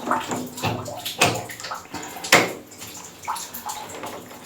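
Door knob parts clicking and knocking as they are handled and fitted together on the door, a string of sharp clicks with the loudest about halfway through.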